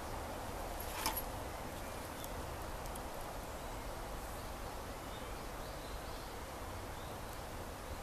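Steady background hiss and low hum, with a single sharp click about a second in and a few faint, short high chirps later on.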